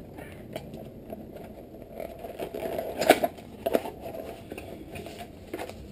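Small product box and its packaging being handled and opened by hand, with scattered light clicks and a short cluster of sharper knocks about three seconds in.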